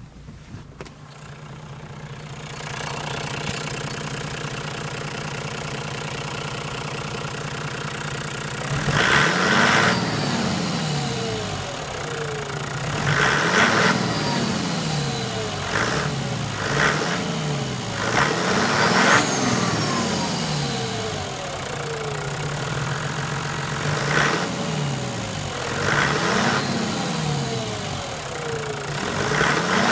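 Toyota 1HD-FTE 4.2-litre turbo-diesel straight-six idling steadily, then blipped about eight times from about a third of the way in, each rev rising and falling back to idle.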